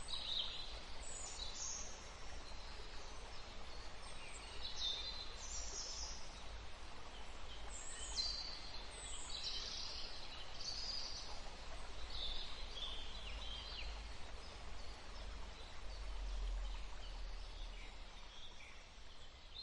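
Small songbirds chirping and calling, many short high calls one after another, over a steady low background rumble.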